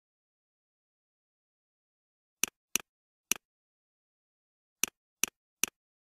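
Computer mouse button clicks against silence: two quick clicks, a single one, then three evenly spaced clicks near the end.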